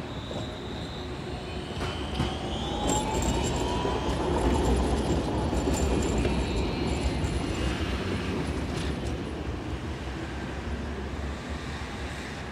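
Alstom Citadis low-floor tram passing by: a motor whine rises in pitch as it approaches, and its rolling rumble is loudest about halfway through. The rumble then fades as the tram moves away, with a faint high squeal in the middle.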